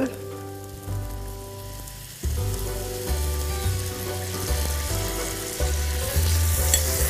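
Duck breast frying in rendered duck fat in a frying pan, sizzling steadily as honey is added to deglaze; the sizzle grows louder about six seconds in. Soft background music with held chords and a stepping bass line plays underneath.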